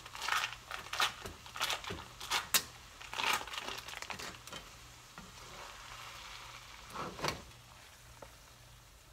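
Foil wrapper of a cream cheese block being peeled open and crumpled: a run of quick, irregular crinkling rustles over the first few seconds, then one more brief crinkle about seven seconds in.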